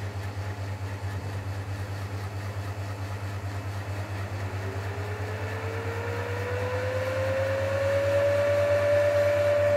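The VHF linear amplifier's 48-volt cooling fan spinning up after power-on: a whine that rises in pitch and grows louder from about four seconds in, then levels off at speed, over a steady low hum.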